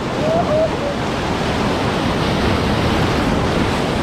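River whitewater rushing steadily around the raft in a rapid at about 1800 cfs.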